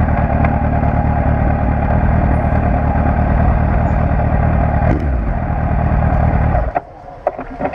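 Suzuki Bandit 1200 S inline-four motorcycle engine running steadily, then cut off abruptly about six and a half seconds in, followed by a few sharp clicks.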